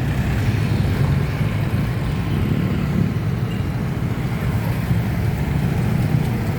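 Street traffic: a steady engine rumble from motor vehicles passing and running close by.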